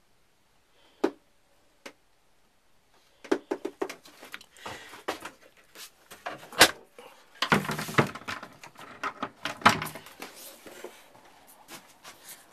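Handling noise from a hand-held camera: two sharp clicks, then from about three seconds in a dense, irregular run of knocks, rubs and scrapes as hands grip and move the camera close to its microphone.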